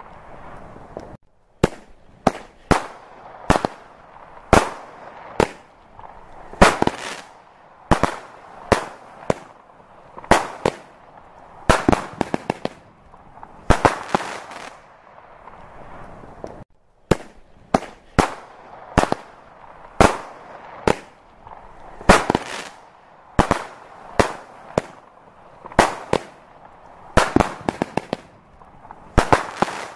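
Fireworks display: aerial shells bursting in a steady run of sharp bangs, about one a second and sometimes two close together, each trailing off briefly. The sound drops out for a moment twice.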